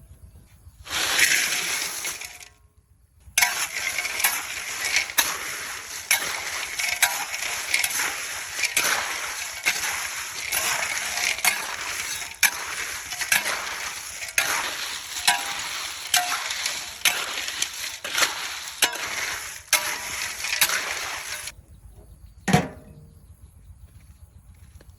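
Steady splashing of water, dotted with irregular clinks and knocks, starting after a short pause about three seconds in and stopping a few seconds before the end; one sharp knock follows shortly after.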